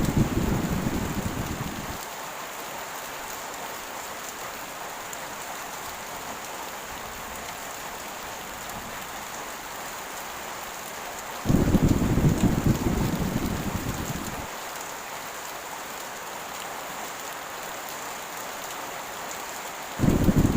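Heavy rain falling steadily, with thunder rumbling: a rumble dying away in the first two seconds, another breaking in suddenly about eleven seconds in and fading over about three seconds, and a third starting just before the end.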